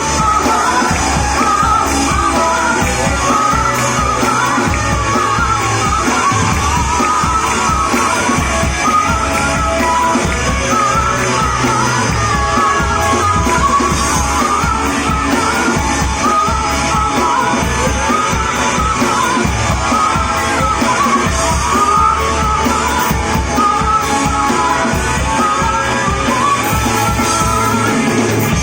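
A live band playing a rock song, with a singer's voice held over the full band at a steady, loud level.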